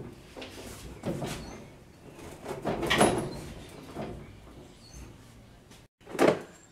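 Steel front bed panel of a 1949 GMC pickup being pulled and rocked by hand. It gives a series of metal scrapes and clunks, the loudest about three seconds in, then one more sharp clunk near the end.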